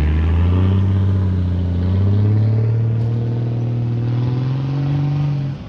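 The diesel engine of a 1966 Ford F-250 pulls hard under load as the two-wheel-drive truck climbs a snowy berm. Its pitch rises slowly, then drops away sharply near the end as the throttle comes off.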